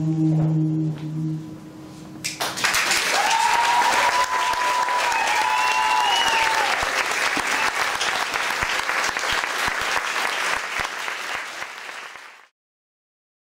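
The song's last held note dies away, then the audience breaks into applause about two seconds in, with a long whistle from the crowd in the first seconds of it. The applause cuts off abruptly near the end.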